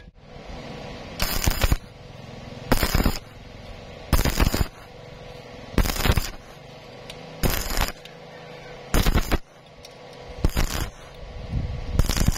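Arc crackling from stick welding with an E6013 2.0 mm electrode at 60 amps DCEP, in about eight short bursts of roughly half a second each, one every second and a half or so: the arc is struck and broken again and again, stitch-welding thin square tube a bit at a time.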